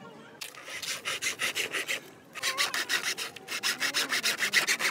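Thin hand saw cutting through a bamboo stick resting on a wooden block: quick back-and-forth rasping strokes, about six a second, with a short pause about two seconds in.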